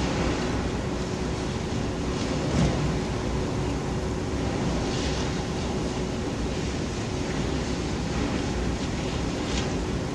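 Steady noise of demolition machinery at work, with an engine hum that stops about six seconds in and a few faint knocks.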